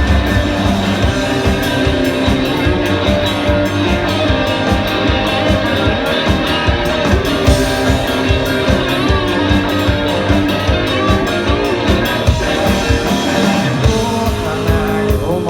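Rock band playing an instrumental break of a song, with guitar and a steady drum beat.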